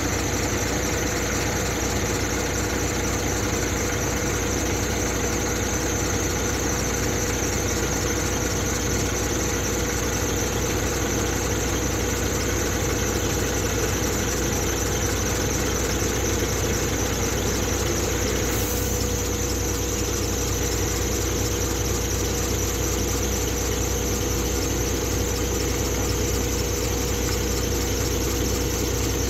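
Renault hook-loader lorry's diesel engine running while its hydraulic hook-lift sets down a steel roll-on/off bin, with a steady whine over the engine.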